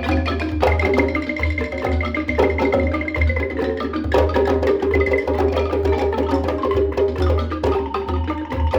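Amadinda (embaire) log xylophone, its wooden keys struck with beaters in a fast, dense stream of many-pitched notes, with a low pulsing underneath.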